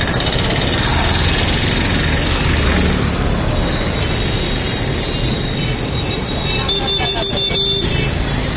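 Steady, loud city road traffic: motor scooter and three-wheeler engines running close by. A thin high whine comes in briefly about seven seconds in.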